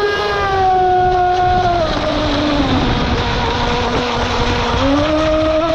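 RC model boat's outboard motor under a scale Evinrude V8 cowling, running at speed with a steady high whine over the rush of water and spray. The pitch drops about two seconds in as the throttle eases, then climbs again near the end.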